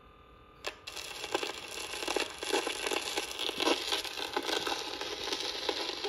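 Stylus set down on a 1942 home-recorded disc with a single click, followed by dense crackle and pops of surface noise from the record's worn lead-in groove, with no bass.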